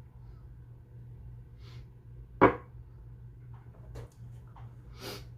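Quiet small-room tone with a steady low hum, broken once about two and a half seconds in by a single short, sharp sound much louder than the rest, and a brief breathy rush near the end.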